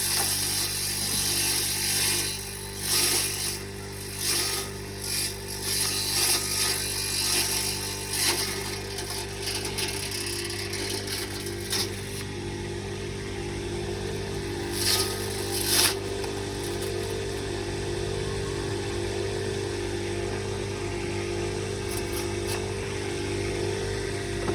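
Motor-driven grass chopper machine running steadily, with irregular loud chopping bursts through the first half, then running evenly with two short bursts a little after the midpoint.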